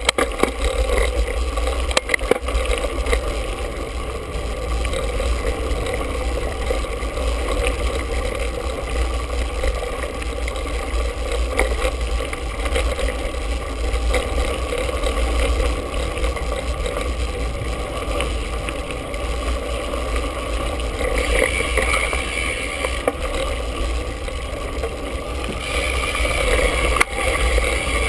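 Mountain bike ridden over a rough dirt singletrack, heard through a handlebar-mounted action camera: a steady rumble and rattle of the bike and tyres on the trail, with wind on the microphone and a few sharp knocks from bumps. A higher hiss comes in twice near the end.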